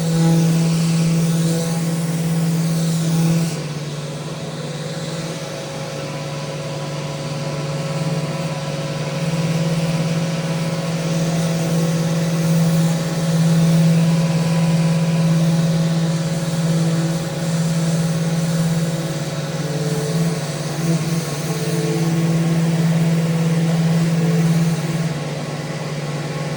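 Electric power sander running steadily against a handrail: a constant motor hum under a rasping hiss that swells and fades as the sander is pressed and moved.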